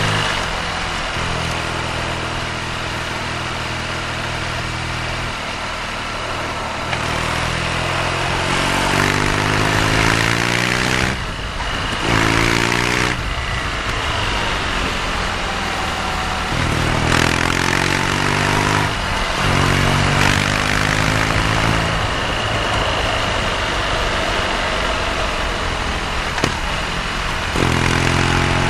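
BMW R nineT's 1170 cc air/oil-cooled boxer twin on the move. It pulls up through the revs several times, the pitch climbing in steps as it goes through the gears, and settles between pulls to steadier low-rev running. A constant rush of wind and road noise sits under it.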